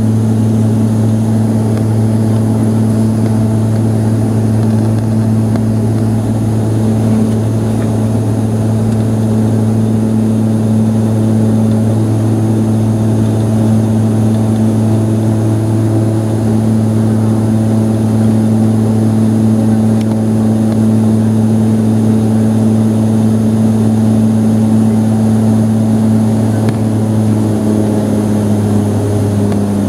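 Cabin noise of a Saab 2000 turboprop airliner climbing after take-off: the steady drone of its two Allison AE2100 turboprop engines and six-bladed propellers, a strong low hum with overtones over a wash of airflow noise. The pitch of the hum shifts slightly near the end.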